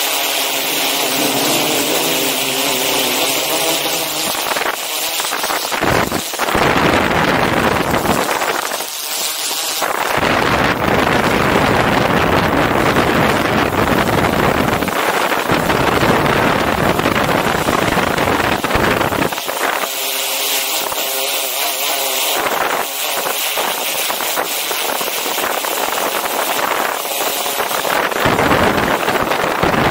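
DJI Inspire 2 quadcopter's rotors humming loudly at a steady pitch, picked up by the camera it carries. Wind buffeting the microphone comes and goes, drowning the rotor hum in a low rumble through the middle stretch and again near the end.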